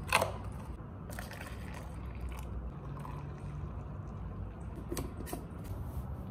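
A sharp clatter just after the start, then a few fainter clicks about a second in and near the five-second mark, over a steady low rumble.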